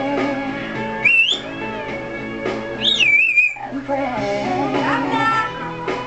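African grey parrot whistling twice: a short rising whistle about a second in, and a longer one near the middle that rises and then wavers. Guitar music plays underneath.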